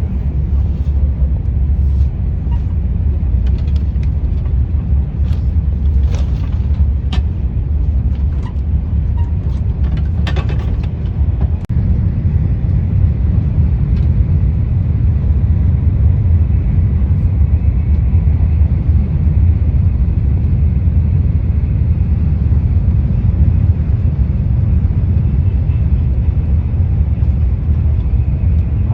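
KTX high-speed train running: a steady deep rumble, with scattered faint clicks and ticks in the first dozen seconds.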